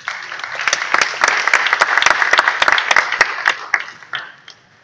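Audience applauding: a burst of clapping from a roomful of people that swells at once and fades away after about four seconds.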